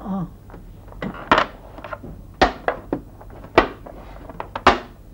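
Mahjong tiles clacking on a wooden table as players discard and shuffle them: four sharp clacks about a second apart, with lighter clicks between.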